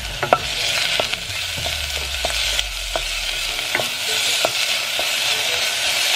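Grated garlic and ginger sizzling steadily in hot olive oil in a stainless-steel saucepan, stirred with a wooden spoon that knocks and scrapes against the pan several times, the sharpest knock about a third of a second in.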